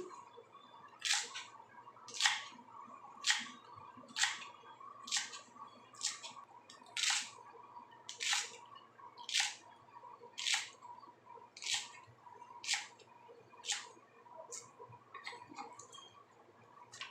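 Knife chopping garlic chive flower stalks into short pieces on a cutting board: about fourteen sharp, even cuts roughly one a second, trailing off into a few softer knocks near the end.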